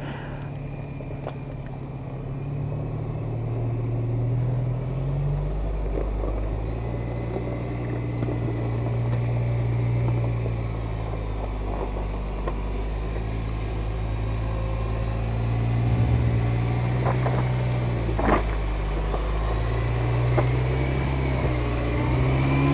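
Lifted 4x4 pickup's engine revving up and down in slow surges as it crawls over rocks, with a few sharp knocks late on.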